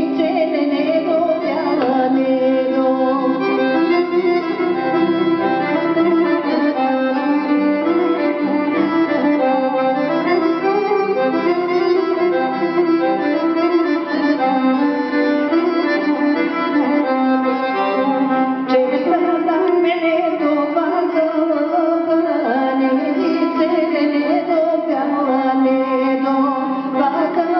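Bulgarian folk dance tune, a kopanitsa in 11/16 time, played live on accordion with acoustic guitar and gadulka, a Bulgarian bowed fiddle. The accordion leads, without pause.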